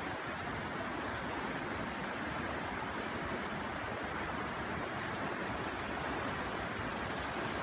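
Steady rushing of a river current flowing over a shallow, weedy bed, with a few faint short high chirps.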